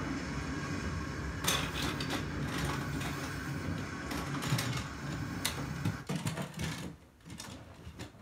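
A small motor running with a steady, rough low hum and a few sharp clicks, then stopping about seven seconds in.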